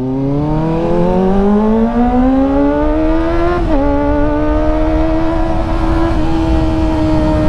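Kawasaki ZX-25R's 250 cc inline-four accelerating hard through an IXIL aftermarket exhaust with the dB killer fitted: the note climbs steadily for about three and a half seconds, dips briefly as the quick shifter changes up, then holds high, with another short break near the end. A low rush of wind runs under it.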